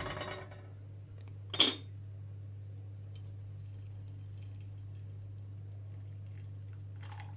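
Brewed tea poured from a porcelain teapot into a glass mug with a metal spoon in it, a thin stream trickling in over a steady low hum. Two sharp clinks come in the first two seconds, the second about a second and a half in.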